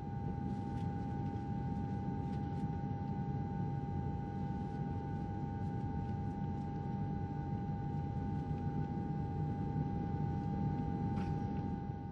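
Airliner cabin noise in flight: a steady low rumble with a constant high whine over it, and a few faint clicks.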